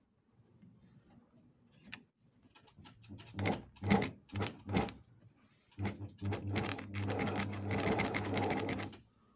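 A 12-needle industrial sewing machine stitching denim on a test run; the owner says its puller is not pulling the fabric. About three seconds in it runs in a few short bursts, then it runs steadily for about three seconds and stops.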